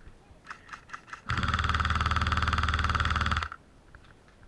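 Airsoft gun firing one continuous full-auto burst of about two seconds, starting a little over a second in and stopping abruptly: a rapid, even stream of shots.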